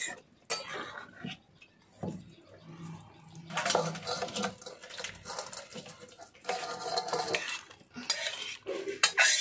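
A long metal spoon scraping and clinking against a metal wok as cooked curry is scraped out of it into a steel bowl, in several separate bursts of scraping.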